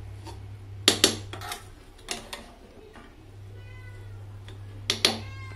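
A metal ladle knocks and scrapes against the inside of an aluminium pressure cooker as cooked biryani rice is stirred: a few sharp clinks, the loudest about a second in and near the end. Two short high squeals with a wavering, falling pitch come midway and just after the last clink.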